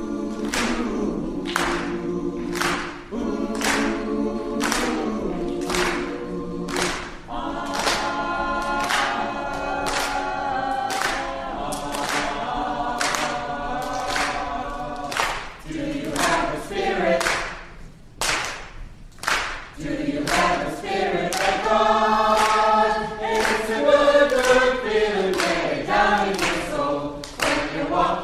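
A choir singing together over a steady beat of about three ticks every two seconds, with a brief drop in the singing about two-thirds of the way through.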